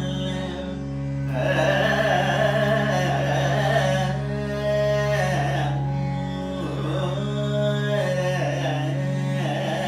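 Male Carnatic vocalist singing with ornamented, gliding melodic lines over a steady drone. The voice eases off briefly about a second in and again past the middle while the drone carries on.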